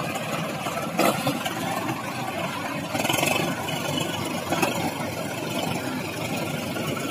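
Sonalika DI 35 tractor's diesel engine running steadily as the tractor works through soft field soil, with one sharp knock about a second in.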